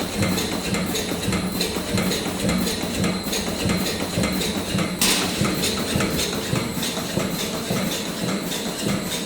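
Cookie-making machine running, with a steady low hum and a regular rhythmic clicking and clatter of its mechanism. A sharper metallic clank comes about five seconds in.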